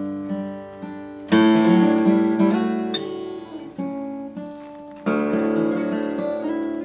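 Acoustic guitar strumming the closing chords of a song, each chord let ring and fading out; a big strum about a second in and another near the end.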